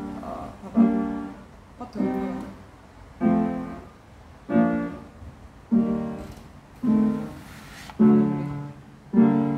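Background piano music: slow notes or chords struck about every second and a bit, each ringing out and fading before the next.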